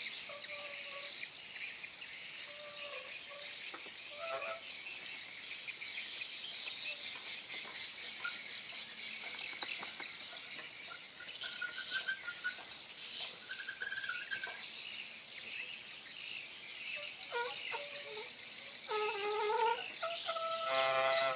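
Outdoor chorus of insects and birds: a steady high-pitched shrill with pulsing trills and scattered short chirps. Near the end a louder, steady buzzing tone comes in.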